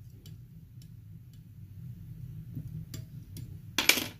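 Scattered faint ticks from a whip finish tool wrapping thread around the head of a fly in a tying vise, over a steady low hum, with a brief louder rustle near the end.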